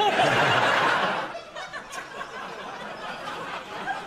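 Studio audience laughing, loud for about the first second and then dying down to scattered chuckles.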